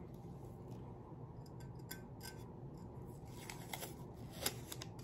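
Blue painter's tape being peeled off a glitter-coated tumbler: faint crackling and ticking, with a sharper snap about four and a half seconds in.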